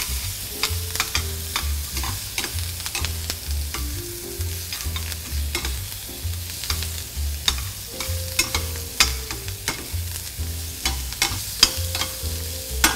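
Crawfish and vegetables sizzling in a hot stainless steel skillet while metal tongs turn them, the tongs clicking and scraping against the pan again and again. Background music with a steady bass beat plays underneath.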